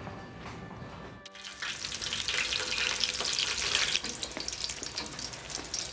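A steady kitchen hiss cuts in about a second in and runs on, with a crackly edge.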